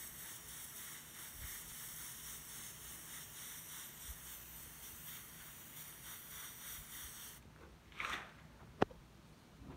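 Airbrush spraying paint onto a wall: a steady hiss of compressed air that cuts off suddenly about three-quarters of the way through. A short rustle and a sharp click follow near the end.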